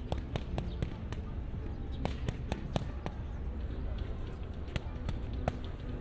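Boxing gloves smacking into hand-held punch mitts: two quick flurries of four or five sharp slaps in the first three seconds, then a couple of single hits near the end.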